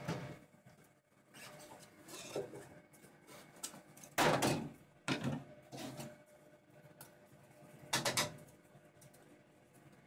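Laser cutter's lid being lifted and a freshly cut plywood oval pulled out of its cutting bed: a series of knocks and scrapes, the loudest about four seconds in and another about eight seconds in.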